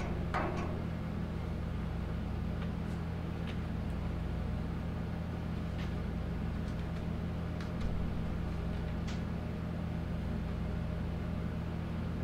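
A steady machine hum holding several fixed low tones, with a few faint, short clicks from small metal parts being handled inside a truck door.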